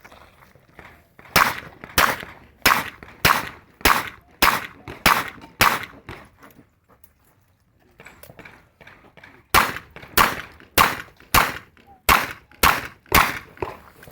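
Revolver fired in two quick strings of about eight shots each, roughly one and a half shots a second, with a pause of about four seconds between strings.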